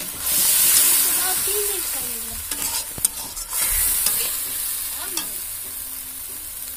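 Onion and ginger-garlic masala sizzling in an aluminium kadai with a little water added, while a steel spatula stirs and scrapes the pan with a few sharp clicks. The sizzle flares up loudly about a second in and again near four seconds, then eases off.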